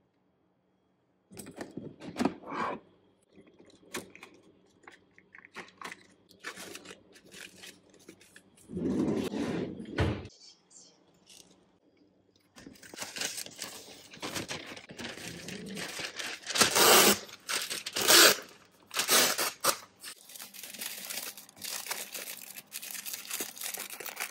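Scattered light knocks and rustles, then deli paper pulled from its dispenser box and torn off, with two loud tearing strokes. It ends in a steady crinkling as the paper is folded around a sandwich.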